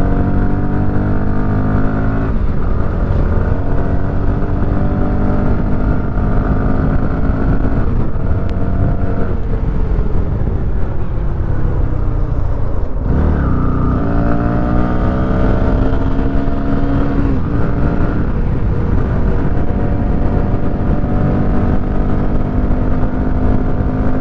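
Bajaj Pulsar NS200's single-cylinder engine running under way on the road, its pitch stepping up and down with gear changes. Around the middle it falls away as the bike slows, breaks off briefly, then climbs again as the rider accelerates.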